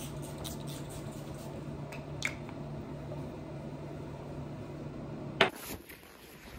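Steady hum of a running household appliance with a few faint clicks, stopping suddenly with a sharp click about five and a half seconds in.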